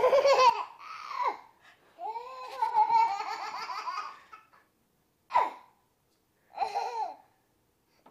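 A baby laughing and squealing in about five high-pitched bursts, the longest running from about two to four seconds in, with short quiet gaps between them.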